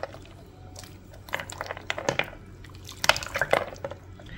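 Ice cubes knocking and clattering in the cold broth of a cucumber and seaweed soup as it is stirred with a wooden spoon in a plastic bowl, with wet sloshing. The clicks come in two quick runs, the second louder.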